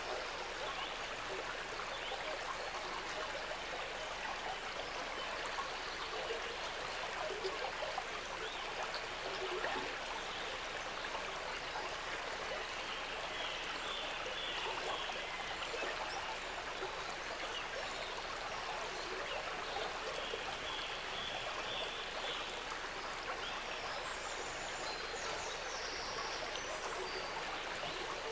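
Shallow gravel brook rippling and trickling steadily.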